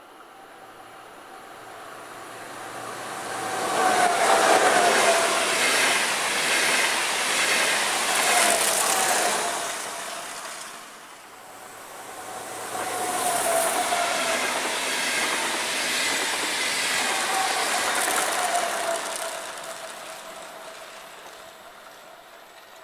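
Two electric passenger trains pass one after the other at speed, a few seconds apart. Each swells up, runs with wheel and rail noise and a tone that drops in pitch as it goes by, then fades away.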